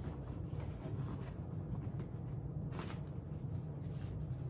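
Soft rustling and scuffing of shoes being pressed into a packed suitcase, with a couple of brief sharper rustles near the end, over a steady low hum.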